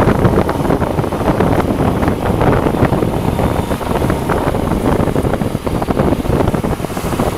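Motorcycle riding at around 20–30 mph: steady wind rumble buffeting the camera microphone, with the engine running underneath.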